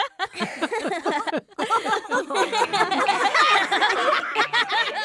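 Several cartoon characters laughing together, voices overlapping with rapid rising and falling pitch.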